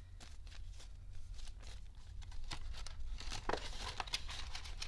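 Paper banknotes rustling and crinkling as a stack of bills is flicked through by hand and slid into a clear plastic binder pocket, in many short ticks and crackles that grow busier in the second half.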